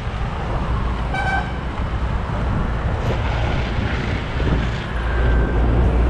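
Wind rumbling across the handlebar-mounted camera's microphone as the mountain bike rides along a road, with road and traffic noise underneath; the rumble grows stronger near the end. About a second in there is a short, high pitched toot.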